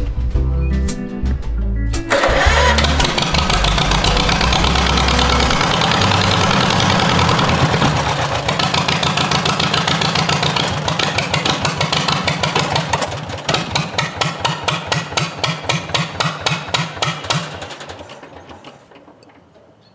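Background music in the first few seconds, then the John Deere MT's two-cylinder engine running. From about 13 s its firing slows into separate, uneven pulses, and it dies out near the end. It runs only reluctantly and won't stay running, which the owner puts down to the carburetor needing more work.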